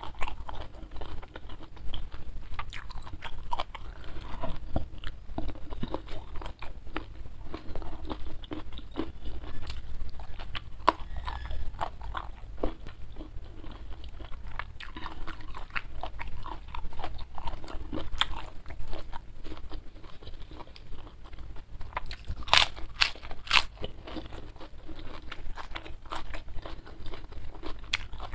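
A person chewing a mouthful of food close to an ASMR microphone, with many small wet mouth clicks and a few sharper crunches about three-quarters of the way through.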